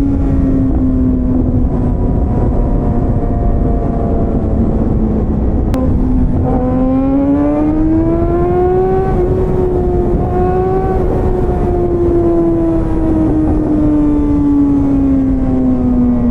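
Motorcycle engine running under way over steady wind and road noise. Its pitch sinks a little, climbs over a couple of seconds from about six seconds in, then slowly falls again.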